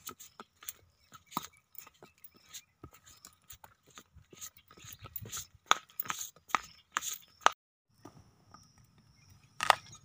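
Horse's hooves clopping on a brick-paved path, a string of sharp irregular clicks. The sound drops out briefly about three quarters in, and a single louder knock comes near the end.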